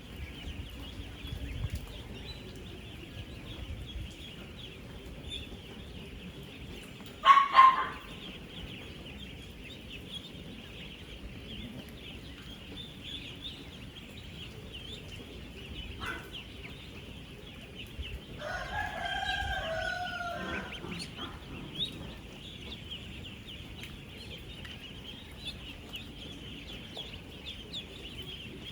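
Thousands of ten-day-old ducklings peeping together in a dense, steady, high chorus. A loud short call cuts through about seven seconds in, and a longer, lower call from a bigger bird, falling in pitch at its end, comes near two-thirds of the way through.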